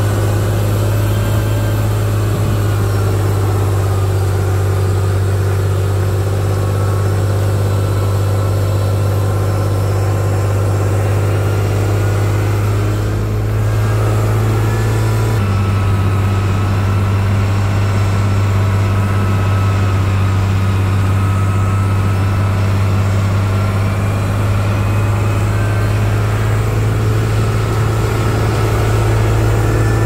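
Diesel engine of heavy earthmoving machinery running steadily, its low hum changing abruptly about halfway through.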